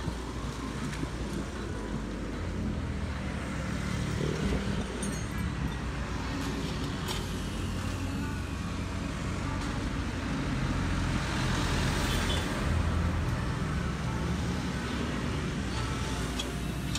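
A motor vehicle engine running with road traffic noise, a steady low hum that grows a little louder partway through.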